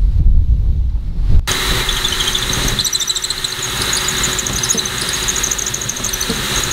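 Cordless drill starting up about a second and a half in and running steadily with a high whine as it bores out a cable hole in the eave soffit to make it slightly bigger.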